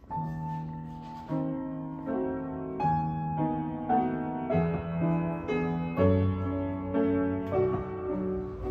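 Upright piano being played by hand: a slow tune of single notes over chords, each note struck and left to ring and fade, with deeper bass notes joining about six seconds in.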